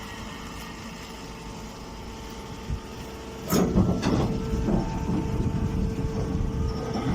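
Baling machine running with a steady motor hum, then about three and a half seconds in a loud, irregular mechanical clatter starts and keeps going.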